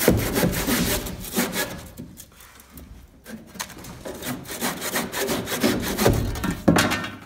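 Hand tool scraping back and forth along a wooden door threshold in quick repeated strokes, easing off about two seconds in and picking up again a second later.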